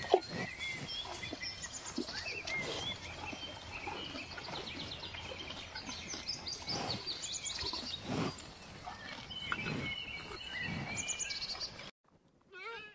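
Outdoor nature ambience: many small birds chirping and twittering over a steady background hiss, with a few dull low thuds. The ambience cuts off abruptly near the end, and a short, wavering bleating animal call begins.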